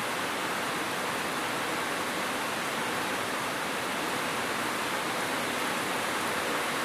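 Steady rain, a dense, even hiss with no single drops or other sounds standing out.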